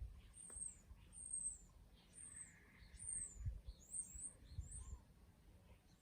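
Faint birdsong: short, high-pitched falling chirps, about one or two a second, with a few soft low thumps underneath.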